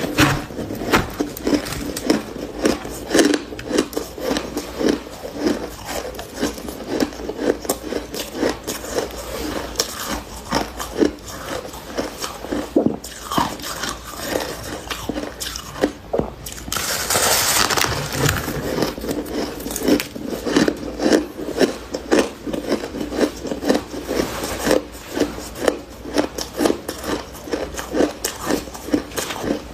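Soft chunk of freezer frost being bitten and chewed close to the microphone, a dense run of quick, irregular crunches.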